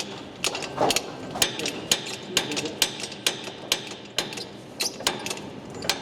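Sharp metallic clicks, evenly spaced about twice a second, typical of a ratchet spanner being worked to run nuts down on a Sentinel steam wagon's final drive.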